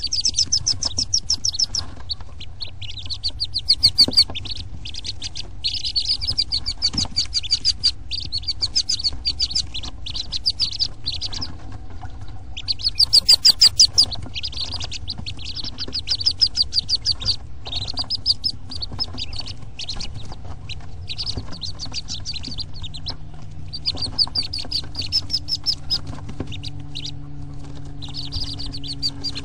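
Day-old wood duck ducklings peeping: rapid runs of high, shrill peeps, a second or two at a time with short breaks between them. The loudest run comes a little before the middle.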